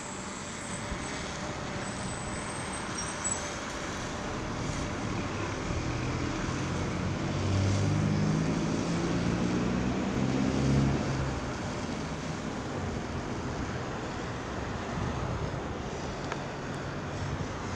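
Road traffic noise, with a motor vehicle passing in the middle; its engine pitch rises in steps, then fades.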